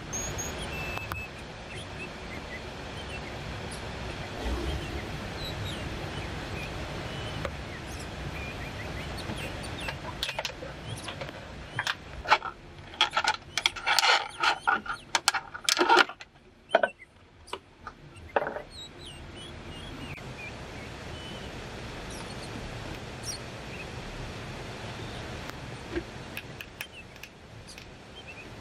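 Thin plastic water bottle crackling and crunching as a hatchet blade cuts through it, a burst of sharp crackles lasting about six seconds midway, over a steady background hiss.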